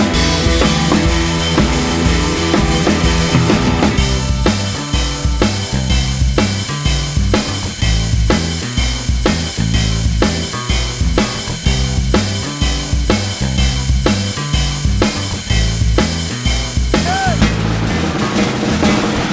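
Background music with a steady drum-kit beat, its texture changing about four seconds in and briefly near the end.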